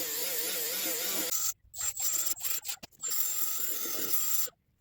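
Power tool spinning a bristle disc against metal, scrubbing a part clean, running in several short stretches with abrupt breaks between them.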